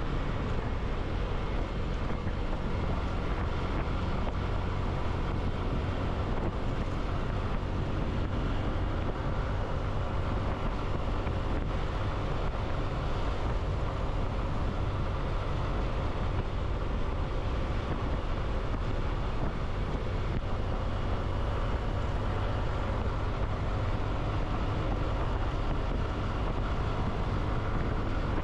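A motorbike cruising at a steady speed: an even engine hum under road and wind noise, with wind buffeting the microphone.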